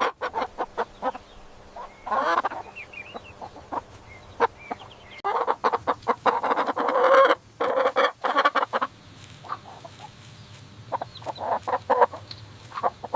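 Chicken clucking in a run of short calls, with longer, louder calls about two seconds in and again around six to seven seconds in.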